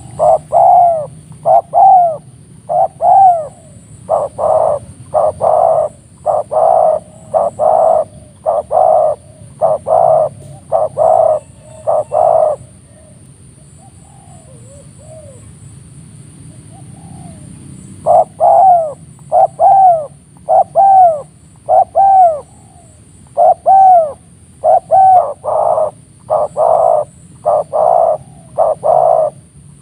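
Spotted doves cooing loudly: phrases of repeated rounded coos, about one to two notes a second, that pause for several seconds in the middle, with only a few faint notes, before starting again.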